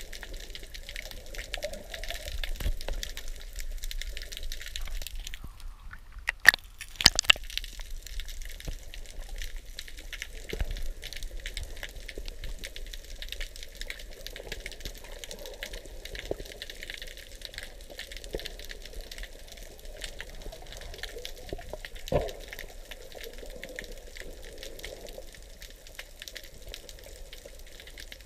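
Underwater ambience as picked up by a submerged camera: a steady crackling hiss over a low rumble of moving water. It is broken by a few sharp knocks about six and seven seconds in, and another about twenty-two seconds in.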